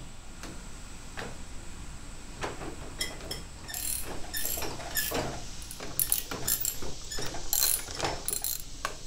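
Socket ratchet clicking in short runs while tightening the nut that holds a riding mower's steering wheel on its shaft, after a few scattered knocks as the parts are handled.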